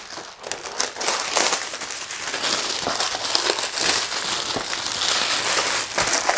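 Clear plastic shrink wrap being peeled off a cardboard box and crumpled: continuous crinkling with many small crackles.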